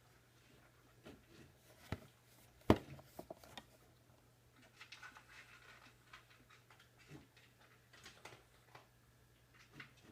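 Sporadic small clicks, knocks and light scuffs, the loudest a single sharp knock a little under three seconds in, over a faint steady hum.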